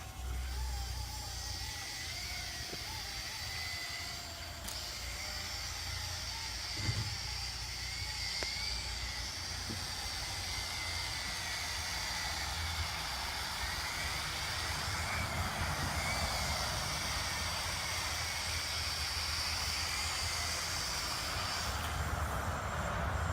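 Small quadcopter drone's motors and propellers whining steadily, with the pitch wavering as it flies, over a low rumble; the whine stops shortly before the end.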